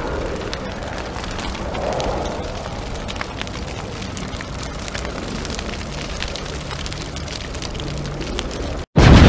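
A steady, rumbling, crackling sound-effect bed, like a fire or eruption, laid under the text slides. It cuts to silence for a moment shortly before the end.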